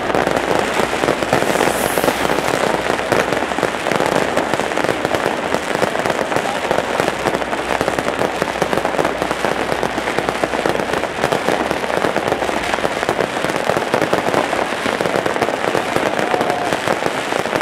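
Fireworks display: aerial shells bursting overhead in a dense, unbroken barrage of rapid bangs and crackling, steady in loudness.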